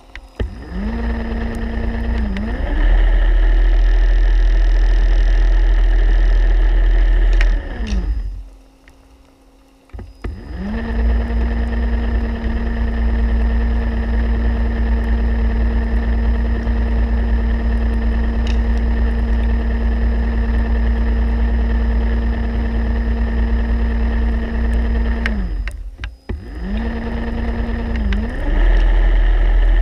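Electric motor of a diver propulsion vehicle (underwater scooter), heard underwater, whining at a steady pitch over a heavy low rush of water. It winds down and stops about eight seconds in, spins back up about two seconds later, then winds down and restarts again near the end, the pitch sliding down and up each time.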